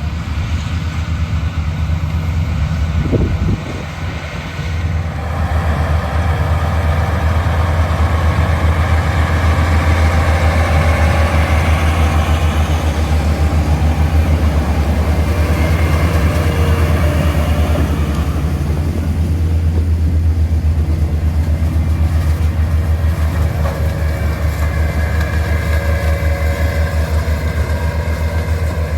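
Heavy diesel harvesting machinery running steadily: a deep, even engine drone with a busier mechanical noise above it, dropping briefly about three seconds in and picking up again about five seconds in.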